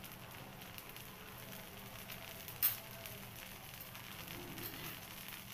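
Thin tomato dosa batter sizzling in oil on a hot dosa griddle, a steady frying hiss with fine crackles as the lacy holes set, and one sharp click about two and a half seconds in.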